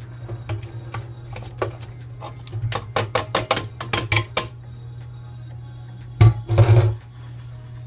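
Metal colander knocking against an aluminium pressure cooker as drained chicken is tipped back into the pot: a run of quick clinks, then a loud knock and a short clatter near the end. A steady low hum runs underneath.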